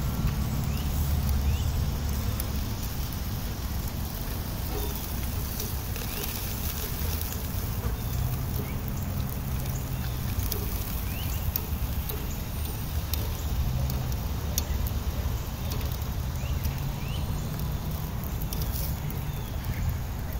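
Open wood fire crackling with scattered sharp pops over a steady low rumble.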